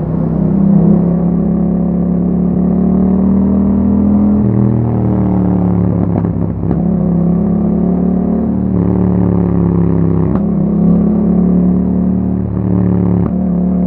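Exhaust note of a Yamaha MT-07's 689 cc parallel-twin engine through an Akrapovic exhaust with dB killer, riding under way. The engine note steps and bends several times as the rider changes gear and throttle.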